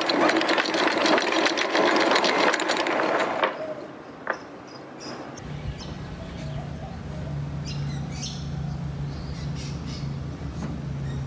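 Galvanised anchor chain rattling rapidly as it runs over the bow windlass and down into the chain locker; the rattle stops after about three and a half seconds. A steady low hum follows a couple of seconds later.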